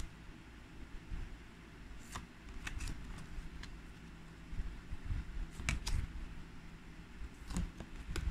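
Packaging and a small box being handled: scattered sharp clicks and crinkles, a cluster about two seconds in and another a little over halfway, over low rumbling handling noise.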